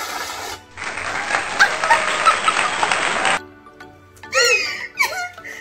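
Aerosol can of whipped cream spraying: a hiss, a short break, then nearly three seconds of hissing, crackling sputter that cuts off suddenly.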